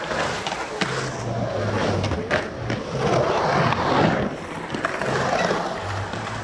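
Skateboard wheels rolling and carving on the concrete walls of a pool bowl: a rolling noise that swells and fades, with a few sharp clacks.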